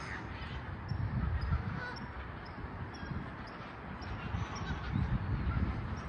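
A flock of geese honking now and then, over a steady low rumbling noise.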